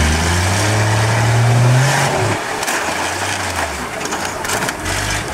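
A vehicle engine revving: its pitch climbs for about two seconds, falls away, then rises again briefly about three seconds in.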